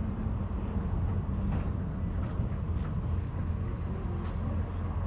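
Ataman city bus engine drone and cabin rumble heard from inside the bus: a steady low hum with occasional faint light rattles.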